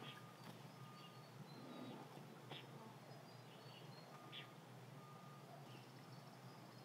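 Near silence: faint outdoor ambience with a steady low hum, a few soft taps, and faint thin high tones coming and going.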